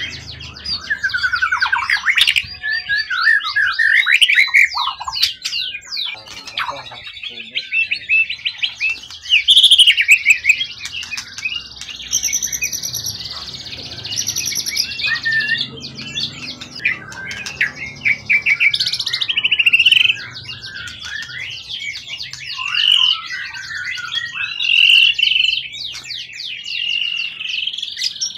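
A songbird singing a long, loud, varied song of rapid trills, clear whistles and chattering sweeps, phrase after phrase with only brief breaks.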